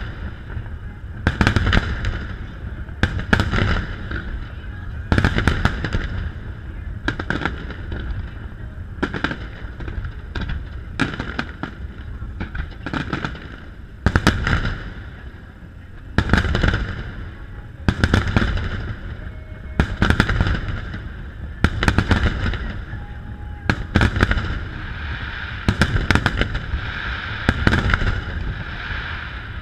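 Aerial firework shells bursting in a large display: a long run of loud bangs, often several in quick succession, with the noise of the barrage carrying on between them.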